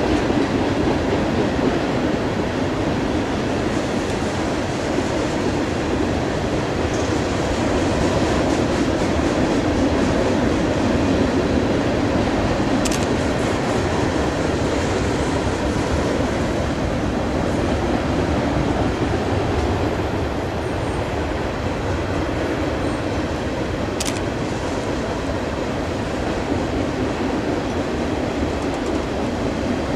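Freight train cars rolling past: a steady rumble and rattle of steel wheels on the rails. Two brief sharp metallic clicks stand out, one near the middle and one later on.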